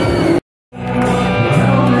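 Loud amplified music with singing. It cuts to silence for a moment just under half a second in, then resumes straight away with a different song.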